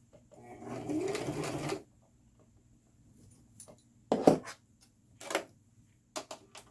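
Electric sewing machine running for about a second and a half, its motor speeding up as it stitches through doubled hair wefts, then stopping. A few short clicks and knocks follow as the fabric is handled.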